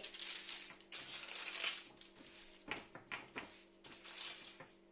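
Baking paper rustling and swishing in several strokes as hands smooth it flat onto a wet metal baking tray, with a few light taps about halfway through.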